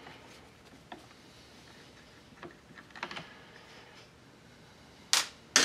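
Small parts and tools being handled on a chainsaw's plastic housing and a workbench: scattered light clicks and taps, then two sharp, louder clacks near the end.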